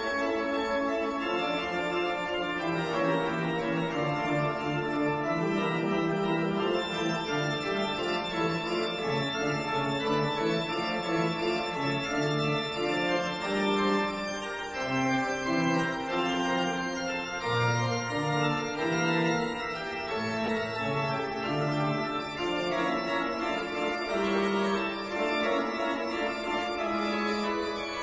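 Background organ music: held chords of steady tones, with the notes changing about every second and a moving bass line beneath.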